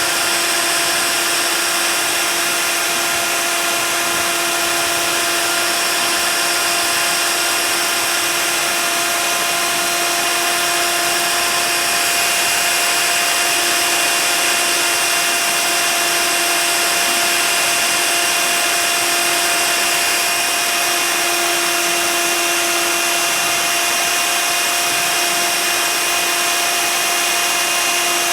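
CNC router spindle running steadily while it cuts expanded PVC sheet: a constant whine over a steady hiss.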